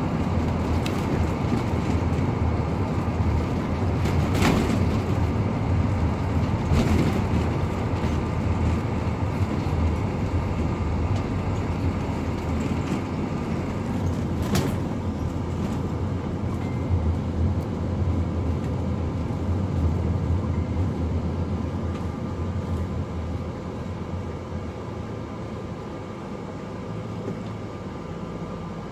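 Ride inside a moving Ford shuttle bus: steady engine and road noise with a deep rumble, and a few sharp knocks of body or fittings rattling over bumps. The noise eases off near the end as the bus slows.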